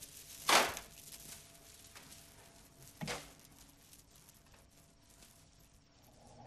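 A beaded door curtain swishing and clattering as someone pushes through it, with faint bead clicks trailing off, then a second shorter rustle about three seconds in. A faint steady hum lies underneath.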